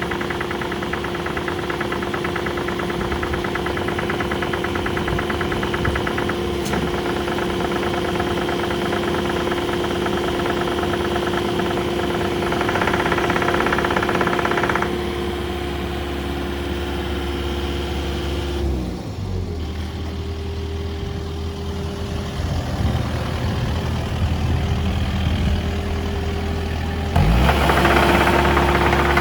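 Kubota KX080-X2 midi excavator's diesel engine running with a steady hum. The engine note shifts several times as the machine works, dipping briefly past the middle and getting louder near the end.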